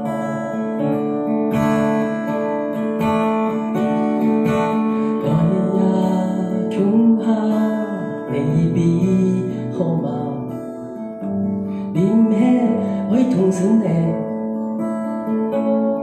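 Live folk band music led by a strummed acoustic guitar, with band accompaniment and a melody line that slides up and down in pitch.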